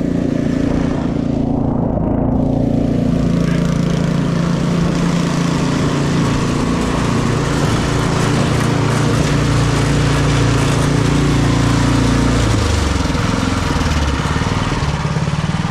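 Gas snowblower engine running steadily under load, with a rushing noise joining in after about two seconds. About twelve seconds in, the engine's pitch drops as it slows.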